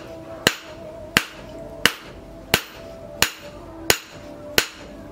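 Hand hammer striking a red-hot steel knife blade on a steel post anvil in a steady rhythm, about one and a half blows a second. Each blow is a sharp ringing clang.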